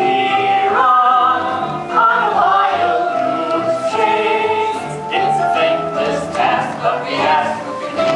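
A musical theatre number: a chorus of voices singing held, wavering notes over instrumental accompaniment with a steady bass line.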